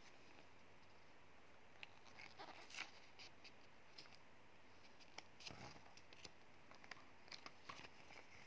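Faint rustling and light clicks of a paper booklet being handled and its pages turned, in scattered short bits starting about two seconds in.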